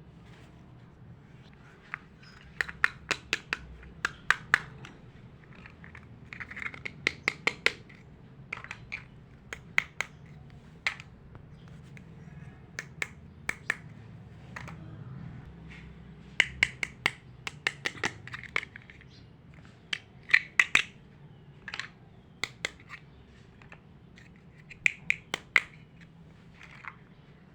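Small plastic toy pieces clicking and tapping together as they are handled, in irregular clusters of sharp clicks with light scratching in between.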